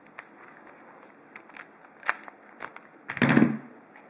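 Light metallic clicks from handling an old ASSA padlock and its key, with one louder clatter about three seconds in.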